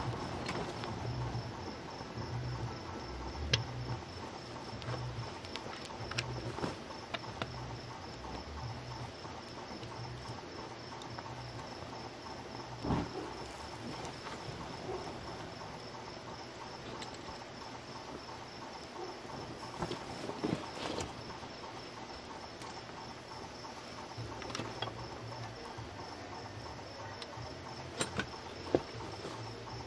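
Steady chirping of crickets, with scattered crackles and knocks as molten aluminium is poured into a lost-foam sand mould and the foam pattern burns off at the sprue.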